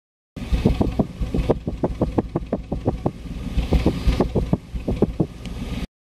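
BMW E34's exhaust at idle, heard at the tailpipe: a low rumble broken by uneven puffs, several a second. The stumbling beat is an intermittent engine misfire.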